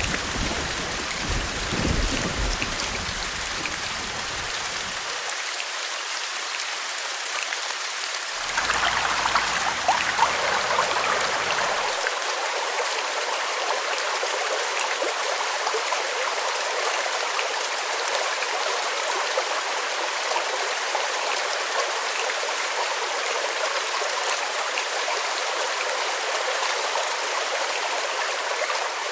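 Steady rush of running water, like a small stream. About eight and a half seconds in it changes abruptly, becoming brighter and a little louder.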